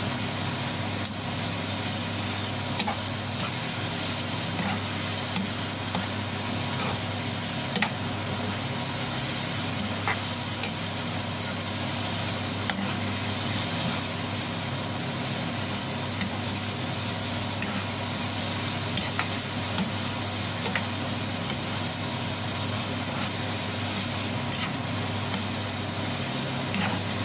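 Pork, onion and tomato sizzling in a frying pan while being stirred with a metal spatula, with scattered clicks and scrapes of the spatula against the pan, over a steady low hum.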